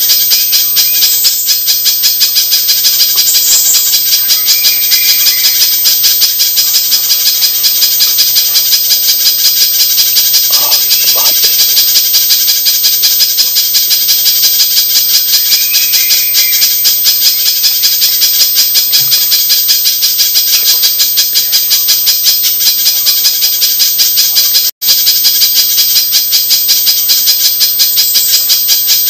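Recorded spiderhunter calls: a fast, unbroken run of sharp, evenly repeated chips, over a faint steady high whine, with a split-second dropout near the end.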